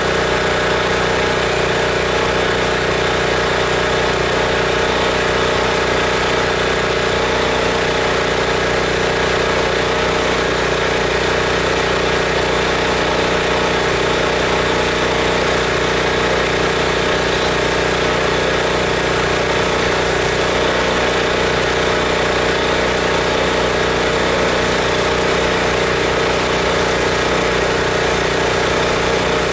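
Pressure washer's gas engine running steadily at a constant speed, driving the pump while the wand soaks the house with chlorine mix through a downstream injector.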